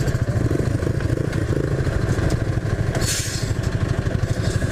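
Honda Biz 125's single-cylinder four-stroke engine running steadily under way, with a brief hissing rush about three seconds in.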